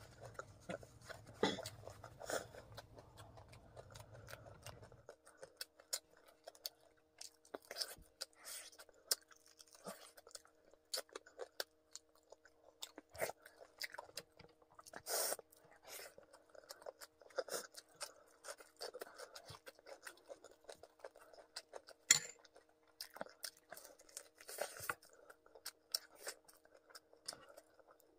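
Close-miked chewing and crunching of crispy fried chicken and pork, with many short crackles and mouth clicks and one sharper crack about two-thirds through. A faint steady hum sits underneath from about five seconds in.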